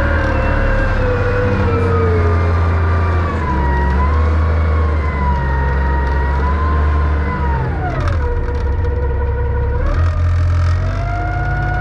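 John Deere 444 wheel loader's diesel engine working under load, with a whining tone over a steady low rumble. The pitch sags over the first several seconds, drops sharply about eight seconds in, then climbs again a couple of seconds later as the throttle and load change.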